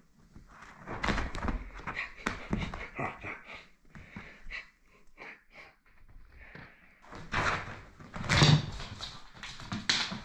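A cat pouncing and scrambling after a cable dragged over a fabric sofa: a run of scuffles, rustles and soft paw thumps. A heavier thump comes about eight seconds in as she jumps down to the wooden floor.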